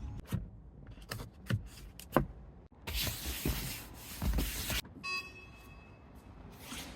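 A run of short sounds from a Tesla Model 3: three quick chirps sliding down in pitch, a hiss lasting about two seconds, then a brief beep.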